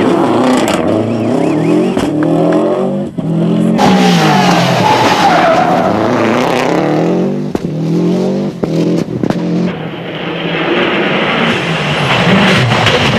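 Subaru Impreza rally car's turbocharged flat-four engine driven hard, its revs climbing and dropping again and again through gear changes, with sharp cracks in between. Near the end the engine sits lower under a steady rush of tyre and road noise.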